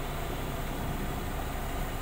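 Diesel engine of a Tadano rough-terrain crane running steadily, a low, even hum.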